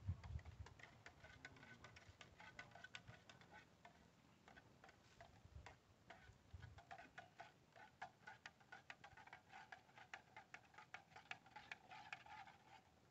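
Faint, irregular crackling and ticking of a small wood campfire burning under a pot.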